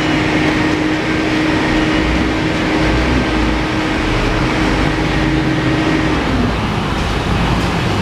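Steady mechanical drone over street noise. The drone's tone dips in pitch and cuts off about six seconds in.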